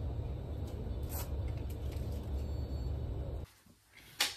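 A steady low rumble that cuts off abruptly about three and a half seconds in, followed by a single sharp click near the end.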